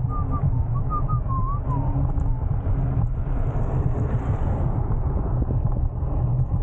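Wind buffeting the microphone of an e-bike rider in motion, a steady low rumble. A few short high chirps come in the first two seconds.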